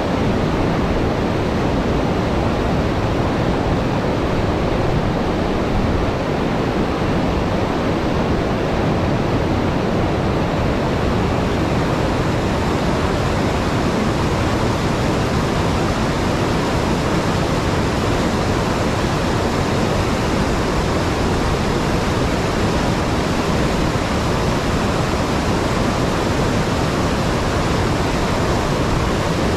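Steady rush of the Housatonic River pouring over a low dam and churning white through the rocks below, an even, unbroken roar of falling water.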